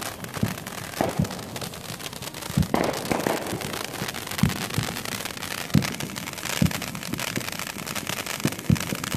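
Ground fountain firework spraying sparks: a steady hiss broken by scattered crackling pops.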